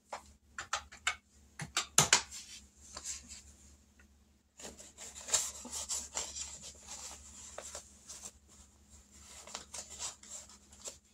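Paper rustling and rubbing with irregular small clicks and taps as savings envelopes and cash are handled, with a short break about four seconds in.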